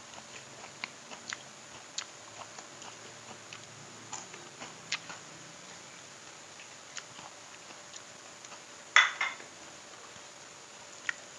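Close-miked chewing of fried catfish and rice eaten by hand, with light scattered clicks and taps from fingers on the plate and one louder sharp clatter about nine seconds in.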